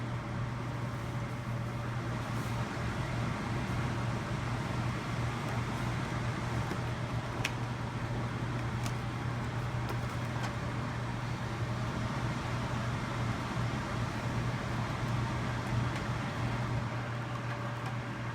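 Honeywell CHS122AE evaporative air cooler running with a steady low hum over an even airy fan noise, with a couple of faint ticks near the middle. This is the loud noise the owner blames on the oscillation function and the water pump of the new unit.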